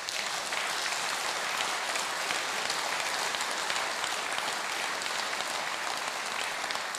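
Audience applauding, a steady dense clatter of many hands clapping that holds at an even level throughout.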